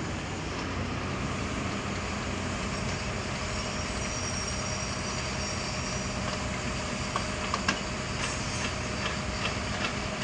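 Heavy-machinery engine running steadily at a low, even pitch while a mini backhoe is lowered by crane into a pit, with a few short metallic clinks about seven to eight seconds in and again near the end.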